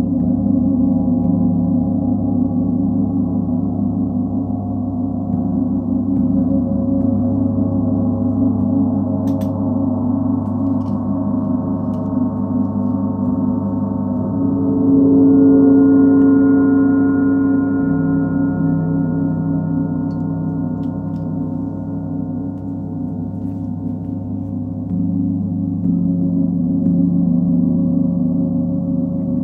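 Large planetary gongs (Sun, Full Moon and Earth) played with a soft mallet, giving a continuous wash of deep, overlapping ringing tones. The sound swells louder about halfway through and again near the end.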